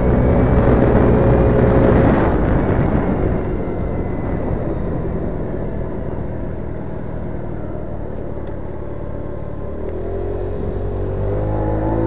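Motor scooter engine running while being ridden, heard from an onboard camera with wind rushing over the microphone. It is loudest with the wind for the first couple of seconds, eases off through the middle, then its pitch climbs again near the end as it speeds up.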